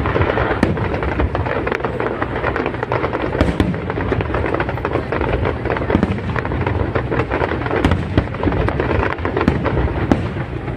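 A fireworks display, with shells bursting in rapid succession: a dense, unbroken string of bangs and crackles.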